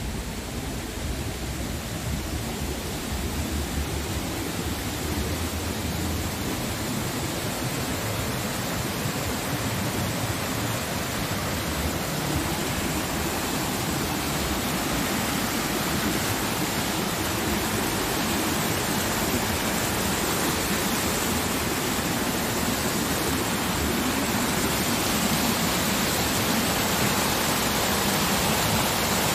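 White water rushing down a mill race beside a stone watermill, a steady rush that grows gradually louder.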